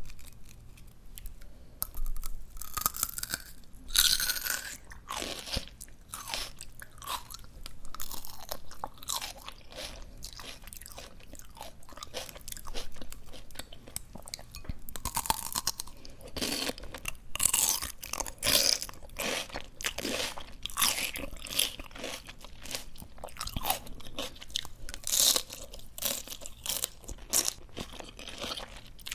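Close-miked chewing of crisp, juicy succulent greens, with irregular wet crunches and crackles throughout and louder bites now and then.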